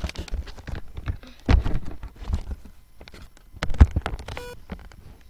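Handling noise from a handheld camera being moved about: irregular knocks, rubs and thumps against the microphone, the loudest just under four seconds in, with a short high tone about four and a half seconds in.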